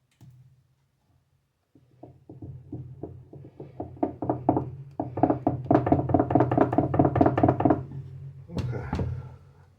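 A spoon beating pancake batter in a mixing bowl, clacking against the bowl about four or five times a second so that the bowl rings. Then come two sharp knocks near the end, the spoon tapped on the bowl's rim.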